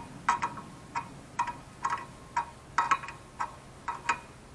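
Light metallic ticks, roughly two a second and a little uneven, each with a short ringing tone.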